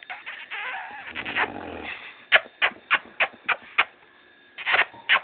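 Snoring: a long, rough in-breath with a deep rumble, then a quick run of six short, sharp bursts at about three a second, and two more near the end.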